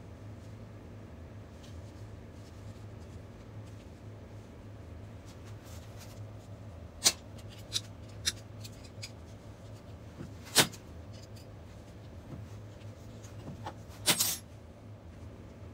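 Compact wire cutters snipping through the stainless steel rods of a drain grate: a handful of sharp snaps spread over the second half, the last a quick cluster. A steady low hum runs underneath.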